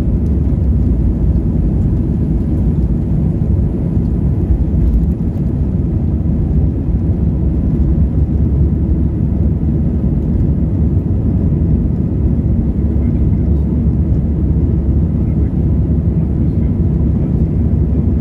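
Steady deep rumble of an Airbus A320's engines and rushing air, heard from a seat inside the passenger cabin.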